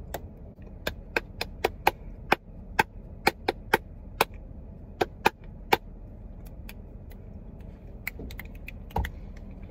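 Hand claps, sharp and irregular, about two a second for the first six seconds, then a few fainter ones and a dull thump about nine seconds in.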